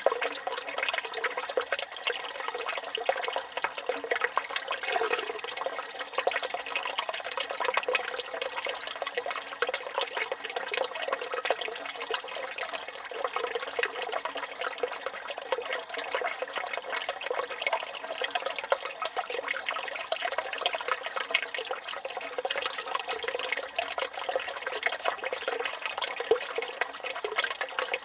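Village fountain water pouring steadily from the spout and splashing into the basin below.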